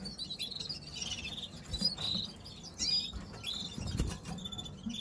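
Canaries in breeding cages chirping and twittering: a scatter of short high calls and quick trills, with a couple of soft knocks.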